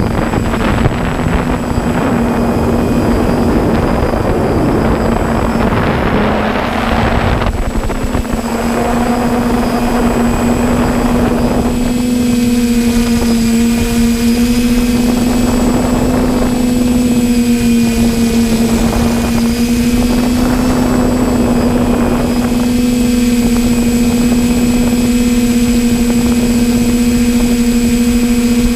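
Multirotor drone's propellers and motors humming steadily at one constant pitch, heard from the camera on board. Gusts of wind noise on the microphone fill the first several seconds and return briefly now and then.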